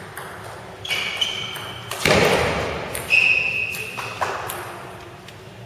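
End of a table tennis point in an echoing hall: sharp ball clicks, high squeaks about one and three seconds in, and a loud sudden burst about two seconds in that rings out in the room.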